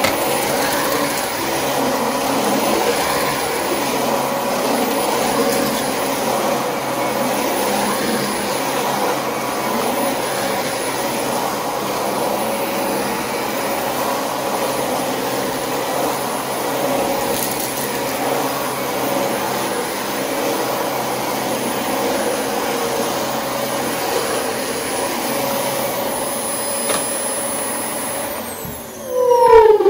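Vacuum cleaner motor running with a steady whine. Near the end its pitch falls away as it winds down.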